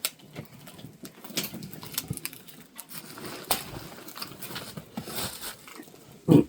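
Cardboard trading-card booster box being pried and torn open by hand: scattered clicks, crackles and scraping of cardboard. A brief louder sound near the end.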